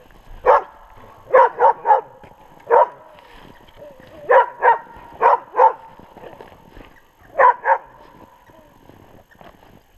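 West Siberian Laika hunting dogs barking at a downed bear: about a dozen sharp barks in clusters of one to three, stopping a couple of seconds before the end.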